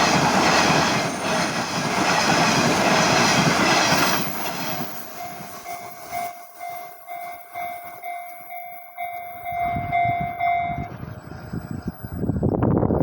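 A Nishitetsu train runs over the level crossing with loud wheel and rail noise that dies away about four seconds in. The crossing's electronic warning bell keeps ringing with a steady, evenly repeating tone and stops about eleven seconds in. About a second later loud train noise starts again.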